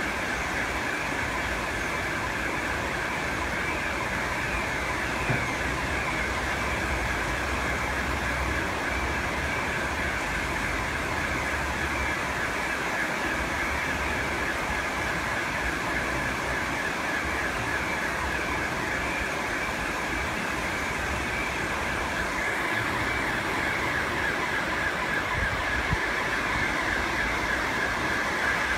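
Floodwater rushing in a fast current across a flooded street, a steady unbroken rush of water.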